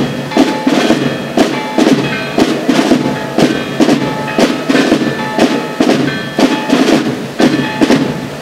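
Military bugle-and-drum band playing a march: a steady beat of snare and bass drum under held brass notes.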